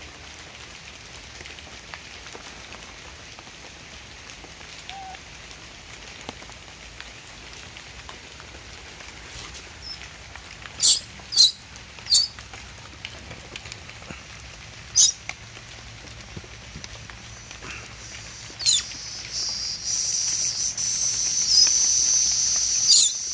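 Baby macaque giving short, loud, high-pitched squeals: about five from about ten seconds in, spaced a second or more apart, over a steady background hiss. Near the end a steady high-pitched drone starts up and more squeals come over it.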